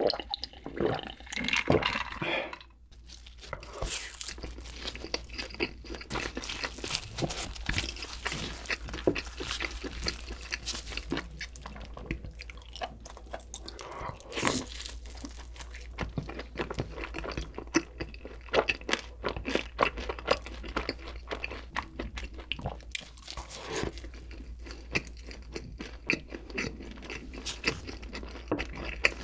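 Close-miked eating sounds: a few gulps of a drink in the first two seconds, then steady chewing and crunching of pizza and chicken with wet mouth sounds.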